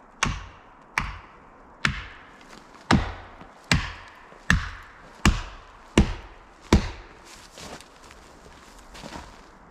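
Hard, regular chopping blows struck into a tree trunk, about one every three-quarters of a second. Nine strong strikes, then a few lighter ones near the end.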